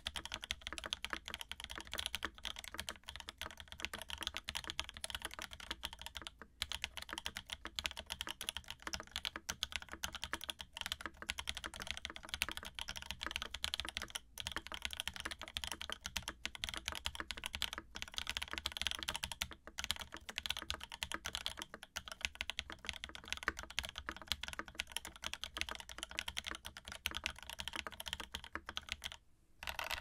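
Steady fast typing on a gasket-mounted Gemini TKL mechanical keyboard with lubed KTT Strawberry linear switches, an aluminium plate, a polycarbonate case and GMK keycaps: a dense run of key clacks with a few brief pauses.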